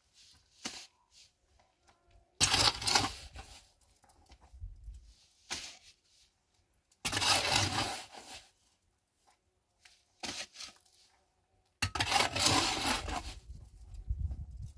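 Gritty crunching and scraping of stones and soil being moved, in three bursts of a second or two each, with small knocks between.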